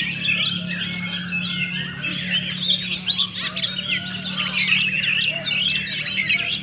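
Dense chorus of caged songbirds chirping and whistling over one another, with a steady low hum underneath.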